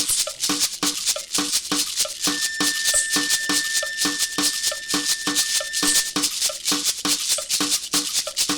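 Percussion-driven music: a fast, even shaker rhythm over steady low drum beats, with one long held high note through the middle.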